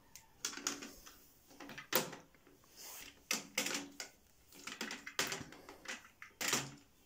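Toy model cars being handled and moved on a plastic multi-level toy parking garage, giving irregular light clicks and knocks as they touch its plastic decks.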